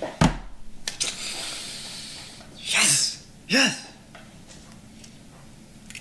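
A man's excited wordless vocal outbursts: a sharp thump and a quick run of breathy bursts near the start, then two short loud cries about three and three and a half seconds in.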